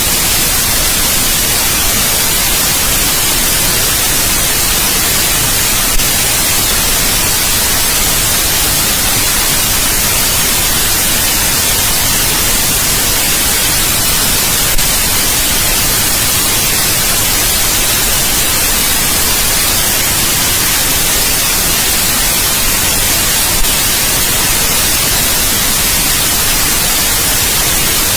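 Steady white noise, an even hiss with most of its energy in the high end. It is broken only by three faint ticks, spaced about nine seconds apart.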